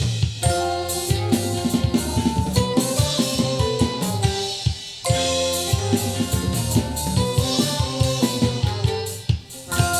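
Recorded music with a drum kit, bass and sustained melodic notes playing over Teufel M200 hi-fi speakers driven by a Harman Kardon HK 970 amplifier. The music drops away briefly just before the midpoint and again near the end.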